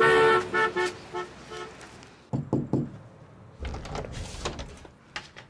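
Classic car horn honked in a run of short toots that die away over the first two seconds. A few short falling sounds follow about two seconds in, with light knocks later.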